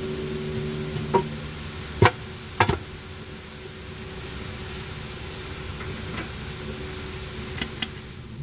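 Sharp metal knocks and clinks of hand tools and parts, a single one about a second in, two close together near the middle, and two more near the end, over a steady mechanical hum that drops a little after the first second.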